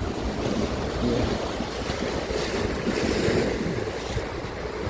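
Ocean surf washing against the shore, with wind buffeting the microphone.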